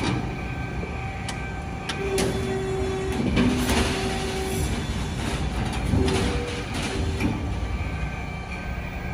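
RAS 74.30 CNC sheet-metal folder running a fold: its drive gives a steady low hum, a whine while the folding beam swings up and again as it comes back down, and several metallic clunks as the beam starts and stops.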